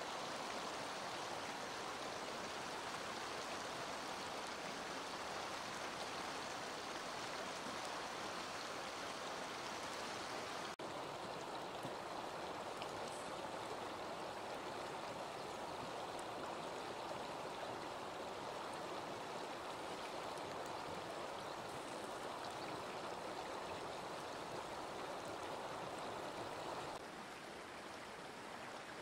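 Steady rushing of a fast-flowing river over stones. It dips for a moment about eleven seconds in and drops a little in level near the end.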